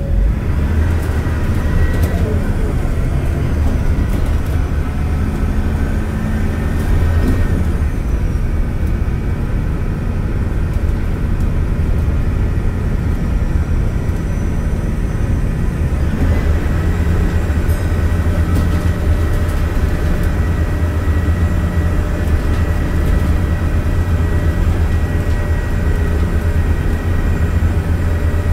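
Mercedes-Benz OC500LE CNG bus engine and drivetrain running: a steady low drone with several whining tones above it, the upper whine growing stronger about halfway through.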